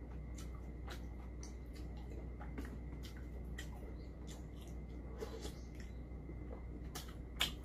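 Quiet eating sounds: scattered soft clicks of a spoon scooping in a bowl of soup, with sipping and chewing, and a sharper click near the end. A low steady hum runs underneath.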